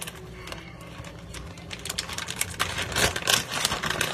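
Plastic bag of shredded cheese crinkling and rustling as it is handled, a quick run of sharp crackles that gets busier and louder in the second half.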